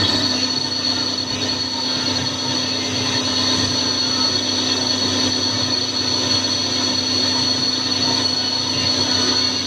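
Wintec TC15 CNC lathe running, a steady machine whine over a hiss, with a high tone that comes in at the start and holds.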